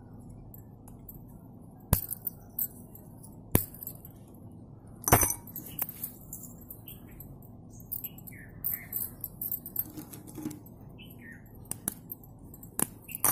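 Slate pencils snapped by hand and the pieces dropped into a glass bowl: a handful of separate sharp cracks and glassy clinks, the loudest about five seconds in.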